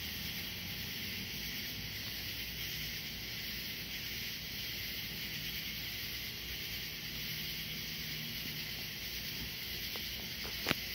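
Steady high hiss of outdoor evening background noise, with one sharp click near the end.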